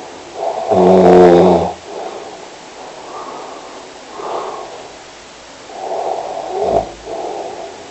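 A sleeper snoring. One loud snore with a clear pitch lasts about a second, starting about a second in. Quieter breaths in and out follow, with a short, sharper snore near the end.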